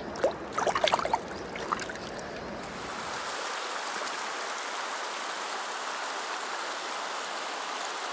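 A shallow river running steadily over stones. In the first second or so, a few quick splashes as a rainbow trout is released by hand into the water.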